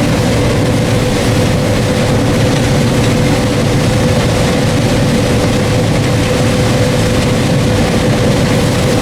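Combine harvester running steadily while harvesting corn, heard from inside the cab: an even drone with a steady whine.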